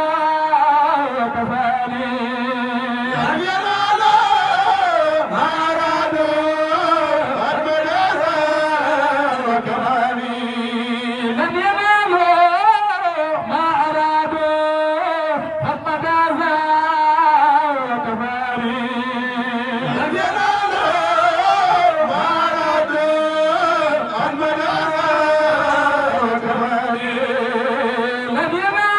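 Men chanting a Sufi zikr in Arabic, a lead voice drawing out long held, wavering melodic lines with no break.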